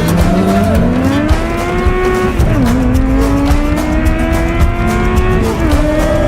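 A vehicle engine accelerating hard, its pitch climbing steadily and then dropping sharply twice at gear changes.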